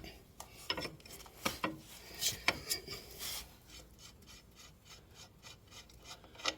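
Hand tools working the bolts of a scooter's rear bracket: scattered light metal clicks and rubbing, then a run of quick, even faint ticks in the second half.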